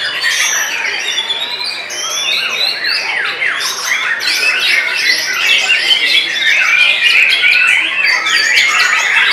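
White-rumped shamas (murai batu) singing in competition: a dense stream of overlapping whistles and rapid sweeping notes from several caged birds at once, growing louder about halfway through.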